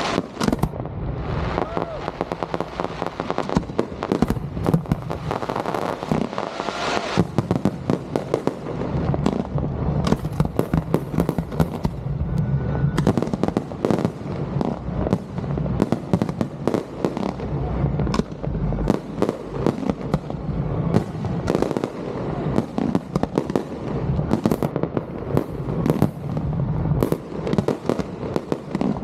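Fireworks display going off in a dense, continuous barrage: many sharp bangs and crackles a second over a low rumble of launches and bursts.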